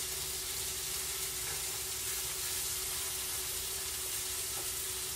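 Sliced mushrooms, onions and bell peppers sizzling steadily in butter in a frying pan, stirred with a silicone whisk.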